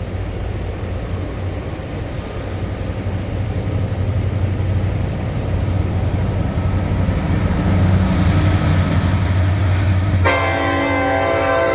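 Union Pacific diesel locomotive approaching, its low engine rumble growing louder; about ten seconds in it sounds its multi-note air horn, a loud held chord that carries on to the end.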